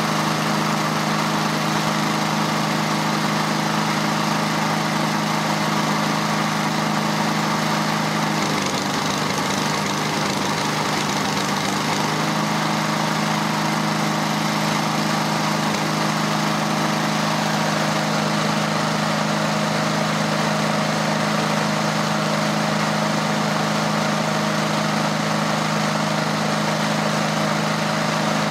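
Walk-behind lawn mower's small engine, converted to run on propane, running steadily at idle. Around eight seconds in its speed wavers unevenly for a few seconds, then settles back to an even idle.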